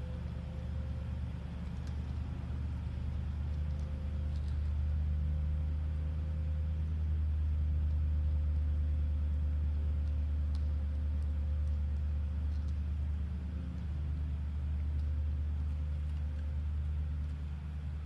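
Steady low mechanical rumble, like a motor or engine running, with a faint steady higher tone over it and a few faint clicks.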